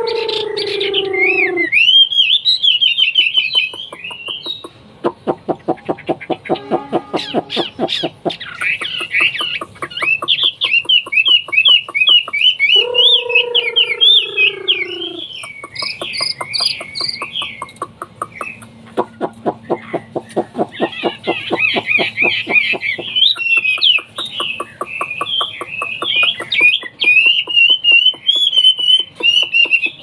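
Caged Chinese hwamei (melodious laughingthrush) singing: long runs of rapid, varied whistled phrases, broken by stretches of fast ticking notes. A lower, drawn-out call falling in pitch sounds twice, at the very start and about halfway through.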